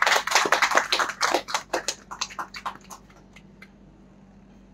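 Small audience applauding, the clapping thinning to a few scattered claps and dying out about three and a half seconds in.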